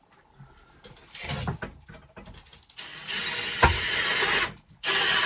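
Cordless drill/driver running in two steady bursts, driving screws to fasten wood blocking. Small clicks and handling knocks come before it.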